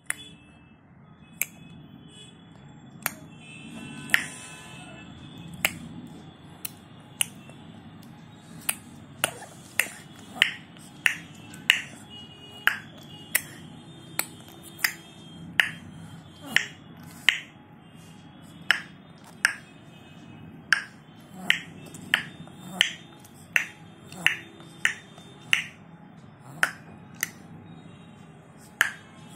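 Baby making repeated sharp clicking sounds with her mouth, sparse at first and then about one or two a second.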